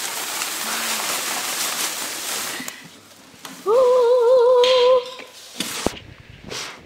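Shredded-paper packing rustling as a parcel is dug into, followed about three and a half seconds in by a high voice singing one held, wavering note, the loudest sound here. A couple of sharp clicks come near the end.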